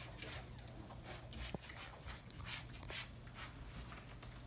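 Hand trigger spray bottle giving a string of short, irregularly spaced spritzes of Odorcide antimicrobial deodorizer onto carpet padding to kill bacteria, over a steady low hum.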